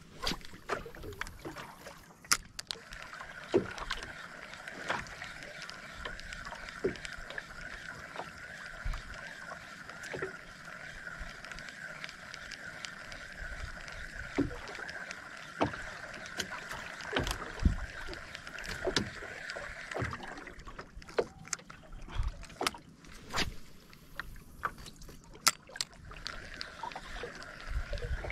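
Ultralight spinning reel cranked in a steady whir with a regular wobble, stopping about two-thirds of the way through and starting again near the end. Scattered clicks and knocks on the boat throughout.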